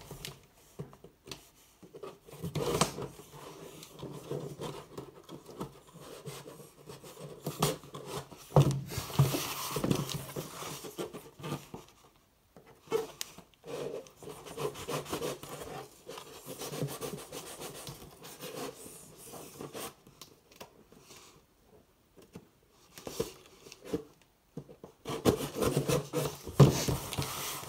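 Cardboard shipping box being opened and handled: scissors scraping and slitting along packing tape, and the box rubbing and knocking against a wooden desk as it is tipped and turned over. There are a few sharp knocks among the scraping.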